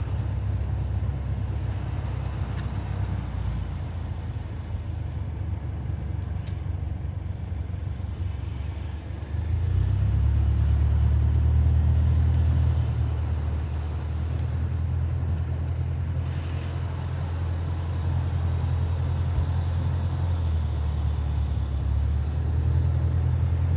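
Mercedes W205 C-Class driving, a steady low road and running rumble that grows louder about ten seconds in and then eases. Over it a faint, very high short chirp repeats about twice a second until near the end.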